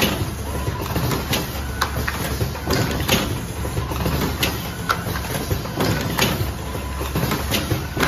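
Vertical automatic cartoning machine running: a steady low mechanical hum broken by sharp clacks at uneven intervals, a few every couple of seconds, from its moving mechanisms and air cylinders as the rotary turret indexes.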